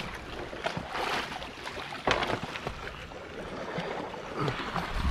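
Small waves splashing at the water's edge, with irregular clicks and rattles and one sharp knock about two seconds in as a wire crab pot is handled on a paddleboard.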